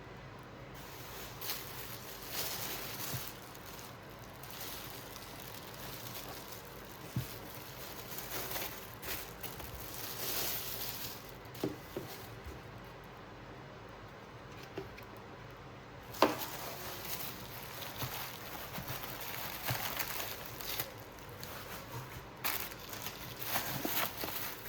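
Packaging rustling and crinkling as a parcel is handled and opened, with scattered light taps and one sharper knock about 16 seconds in.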